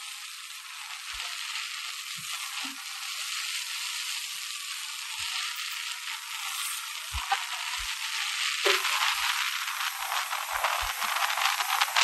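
Wind and road noise on the microphone of a moving vehicle: a steady hiss with a rattling crackle, growing louder near the end.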